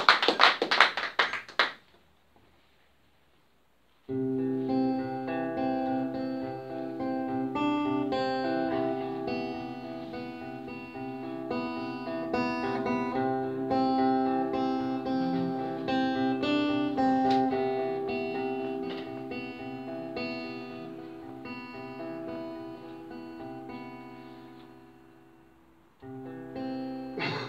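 Applause dies away in the first two seconds. After a brief hush, an acoustic guitar starts about four seconds in, playing an intro of picked notes and ringing chords. It fades out near the end and starts again just before the singing.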